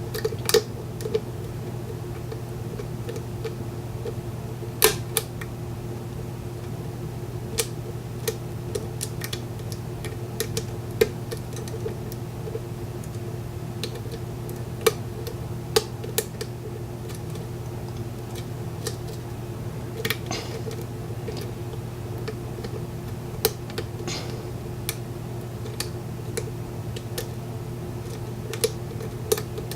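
Irregular sharp metallic clicks and ticks of a lock pick and tension wrench working the pins of a Corbin Russwin mortise cylinder during single-pin picking, over a steady low hum.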